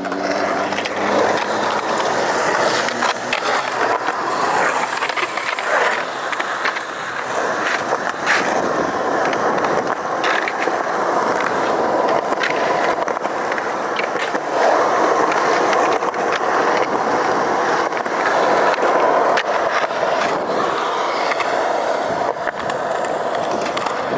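Skateboard rolling on a concrete skatepark: a steady rumble of hard wheels on concrete, with scattered sharp clacks and knocks from the board and trucks.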